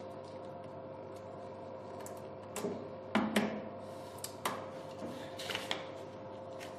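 Scattered small clicks and taps from handling wiring hardware, such as terminal blocks and connectors. They come in two short clusters over a steady faint hum.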